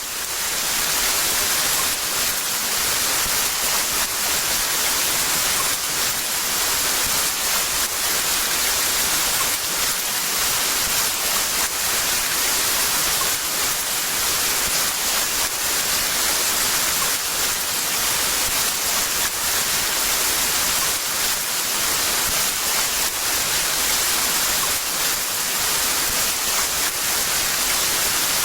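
Heavy rain pouring in a steady, dense hiss, fading in quickly out of silence at the start.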